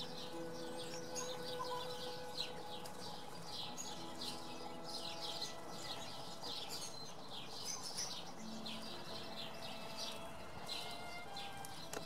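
House sparrows chirping over and over, several short chirps a second, with wings splashing in a bird bath.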